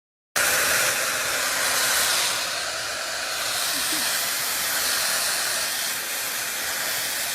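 Steady loud hissing noise that starts abruptly just after the beginning and holds evenly, without any rhythm or pitch.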